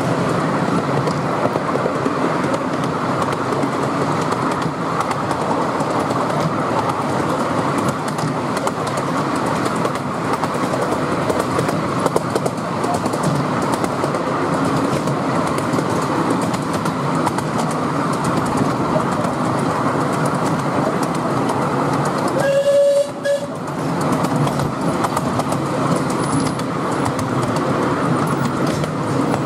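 Miniature steam locomotive, a model of a Southern Railway Merchant Navy-class 4-6-2, running with its train: a steady rumble and clatter of the carriage wheels on the track. About three quarters of the way through, the locomotive gives one short whistle blast.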